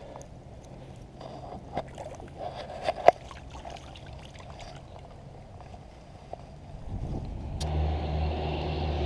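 A released catfish splashing away through shallow water, with scattered light splashes and a few sharp knocks, the loudest about three seconds in. Near the end the sound cuts abruptly to a motor vehicle's engine running with a steady low hum, louder than the splashing.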